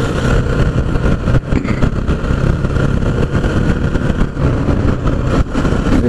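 Motorcycle engine running steadily at cruising speed, about 55 km/h, heard from the rider's position with wind rushing over the microphone.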